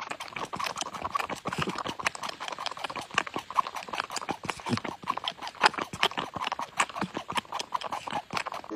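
Tabby cat sucking on a baby bottle's rubber nipple, a quick, irregular run of wet clicks and smacks from its mouth and tongue as it nurses.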